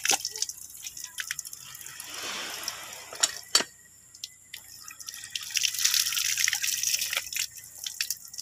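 Water dripping and splashing onto a plastic tub of freshly caught fish and the wet ground, in scattered drops with two sharp clicks about three and a half seconds in.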